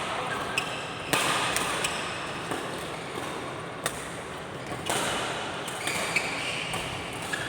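Doubles racket-sport rally in an indoor hall: sharp hits at irregular intervals, with short high squeaks and a hall echo.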